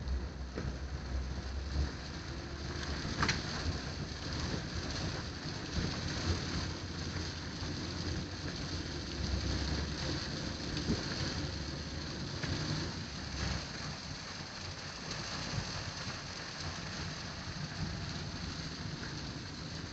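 Steady rain falling, with short low rumbles now and then and a single sharp click about three seconds in.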